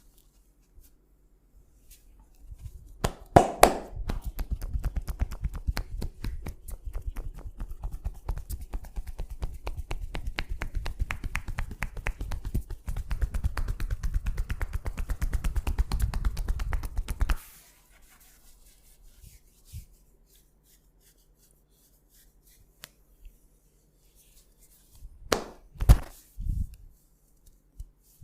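Hands tapping rapidly and rhythmically in a percussive head massage, many quick strikes a second for about fifteen seconds, then stopping. Near the end come a few loud, sharp slaps or snaps.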